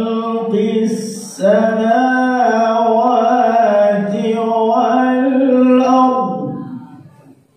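A man reciting the Quran in the melodic tajwid style, holding long ornamented notes. A quick breath about a second in, then one long phrase that ends about six seconds in and fades out.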